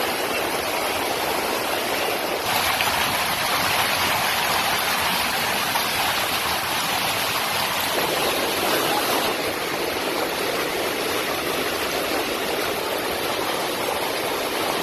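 Muddy flash-flood water rushing in a broad sheet across a paved road, a steady rushing noise. Its tone shifts about two and a half seconds in and again about eight seconds in.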